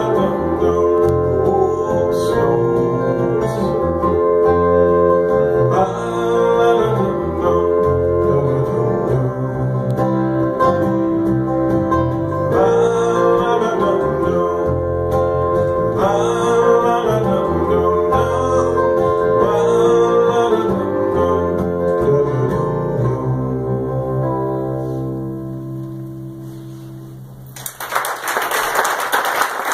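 Live acoustic folk song: acoustic guitar with a man singing and a second stringed instrument. The song ends on a held chord that fades out, and audience applause breaks out near the end.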